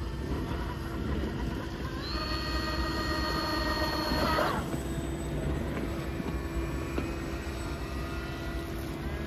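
Whine of an RC boat's twin Roxxy 1960kv brushless outrunner motors driving TFL water jets at high throttle. It rises in about two seconds in, holds steady, then falls away a couple of seconds later as the throttle comes off, over a steady low rumble.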